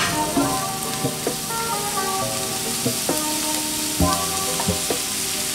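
Butter sizzling as it melts on a hot electric grill plate around grilled pork rolls, over background music.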